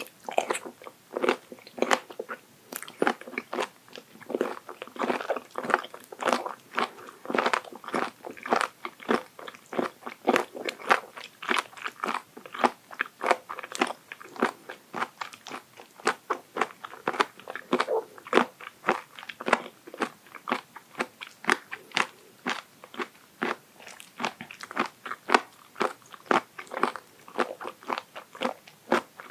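Close-miked chewing of raw abalone sashimi: a steady run of crisp crunches, several a second, as the firm flesh is bitten and chewed.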